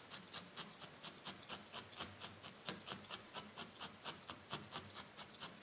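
Multi-needle felting tool jabbing repeatedly into loose wool, a steady run of soft scratchy pokes at about five a second, packing the fluffed fibre down onto the felted body.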